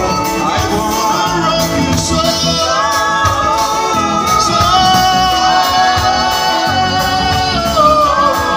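Live band playing: drums, bass guitar, electric guitar and horn under a voice singing long held notes that glide in pitch.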